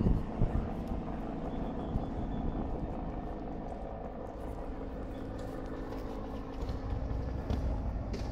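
Steady low rumble of vehicle engines in street traffic, with a couple of thumps right at the start.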